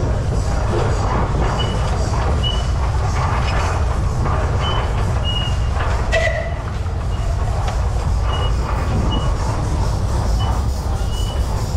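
Steam traction engine running as it drives by, a steady low rumble with mechanical clatter, with short high-pitched tones recurring every second or so.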